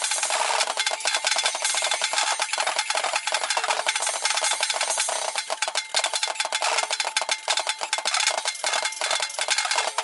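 Drum kit and cymbals being played, sped up with the timelapse into a rapid, high-pitched clatter of hits.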